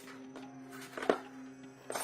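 Soft background music with steady held tones. A sharp knock about a second in, the loudest sound here, and a weaker one near the end.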